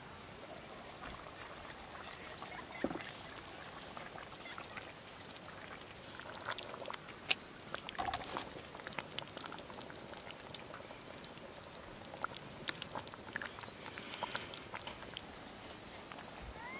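Metal ladle stirring a thick lamb stew in a clay güveç pot: scattered light clicks and scrapes of the ladle against the pot, with soft wet sloshing of the stew.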